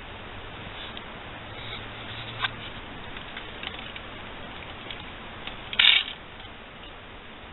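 Small plastic clicks from a miniature toy rotary-telephone ornament as a finger turns its dial, with one short, louder burst of clicking a little before six seconds in, over a steady hiss.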